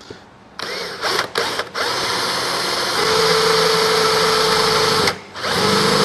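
Black & Decker EVO multi-tool drill boring a metal bit into an oiled thick hollow steel tube. The motor starts about half a second in with two quick stops, then runs steadily, getting louder with a steady whine from about three seconds in as the bit cuts into the steel. It stops briefly near the end and starts again.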